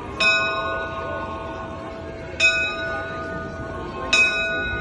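Russian Orthodox church bells struck by a bell ringer, three strokes about two seconds apart, each ringing on and slowly fading.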